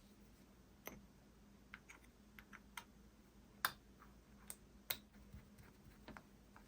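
Faint, irregular clicks and light taps of small plastic and metal parts being handled while a 1/24-scale RC crawler wheel and tire are assembled by hand, about a dozen in all, the sharpest a little past halfway.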